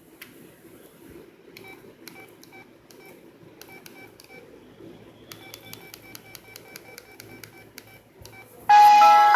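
LG CU500 mobile phone's keypad beeping as its buttons are pressed, a short tone with each press: a few scattered presses, then a quick run of about a dozen. Near the end, a loud melodic LG KG270 ringtone starts playing from the phone's speaker.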